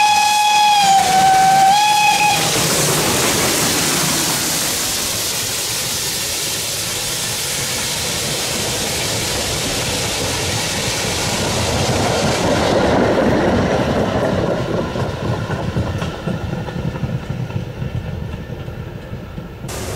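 Steam locomotive whistle giving two blasts, the second short, in the first two seconds or so. Then the steady hiss and rumble of the steam train, with the uneven clatter of the rolling carriages in the second half.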